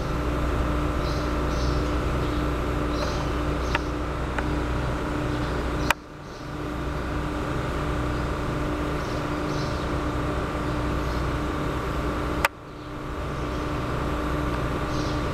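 Steady outdoor background noise with a low rumble and a faint hum, under faint short high chirps. Two sharp clicks, about six seconds in and near the end, are each followed by a brief drop in the sound, which then fades back in.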